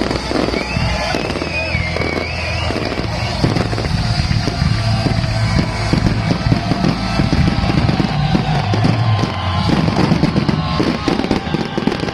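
Fireworks bursting and crackling in quick irregular succession, over loud music with a heavy bass line.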